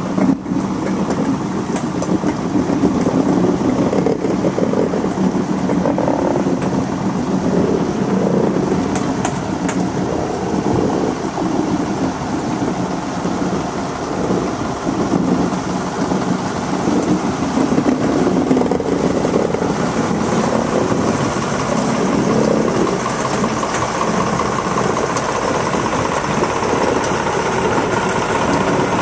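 Class 66 diesel locomotive's EMD two-stroke V12 engine running steadily while it shunts a train slowly, with the coaches rolling on the rails and a single knock near the start.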